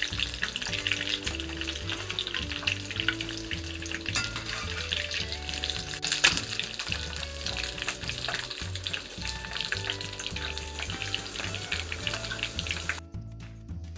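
Battered chicken leg pieces deep-frying in hot oil: a steady crackling sizzle, with the slotted spatula knocking against the pan once about six seconds in as pieces are lifted out. The sizzle cuts off suddenly near the end.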